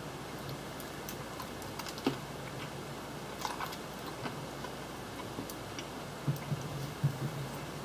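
Irregular light clicks and taps of small plastic Kinder Surprise toy pieces being handled and fitted together, over a low steady hum.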